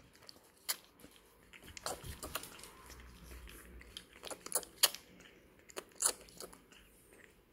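Baby raccoon suckling milk from a feeding bottle: irregular, faint smacking and sucking clicks at the teat.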